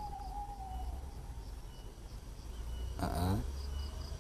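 Night insects chirping in repeated short, high pulses, with a faint held tone sliding slightly downward in the first second. A brief murmur of a voice comes about three seconds in.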